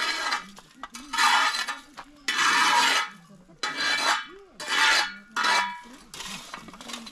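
Repeated scraping strokes against a metal dish, six in about seven seconds, each a short hiss, as in working bread dough or flour in a metal pan.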